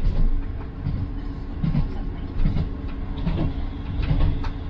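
Onboard running noise of a ScotRail Class 158 diesel multiple unit under way: a steady low rumble from the wheels, running gear and diesel engine, with a few light clicks.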